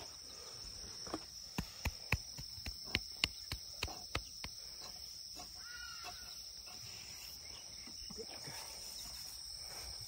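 Crickets chirring steadily in one high, even band. A quick run of about a dozen sharp knocks comes between about one and four and a half seconds in, and a short chirping call comes about six seconds in.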